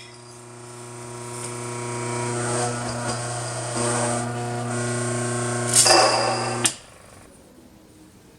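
Mockmill 100 electric stone grain mill running as it grinds grain on grind setting 3: a steady motor hum that slowly grows louder, then cuts off when the mill is switched off about two seconds before the end.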